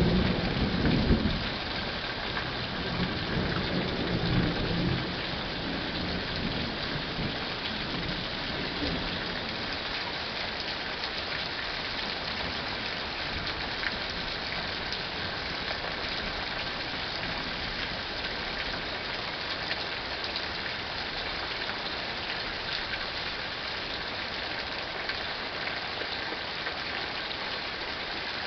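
Thunderstorm: a low rumble of thunder dies away over the first few seconds, then steady rain.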